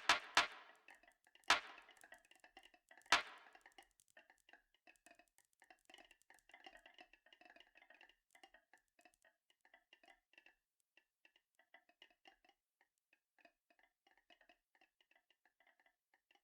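Marbles rolling along a marble run track: a few sharp clacks in the first three seconds, then a long stretch of faint, quick rattling and clicking as they roll on.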